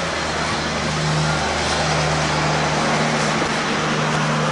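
A steady mechanical hum under a constant rushing noise.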